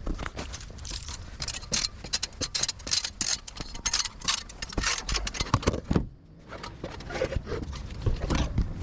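Rapid clicks, knocks and scrapes of work on an asphalt shingle roof, with a brief lull about six seconds in.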